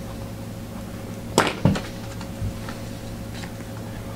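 Two sharp knocks about a second and a half in, a fainter one later and another at the very end, over a steady electrical hum: hands handling trading cards and their holders on the table between cards.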